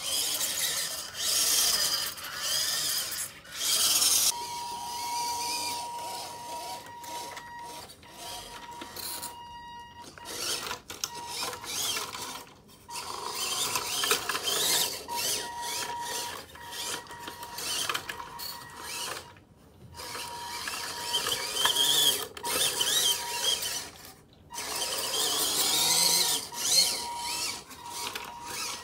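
1/16-scale RC crawler on a WPL chassis driving: the small electric motor and geared drivetrain whine with a ratcheting, grinding rattle, and the tyres scrub and bump over a wooden floor and rubber rings. It stops and starts several times.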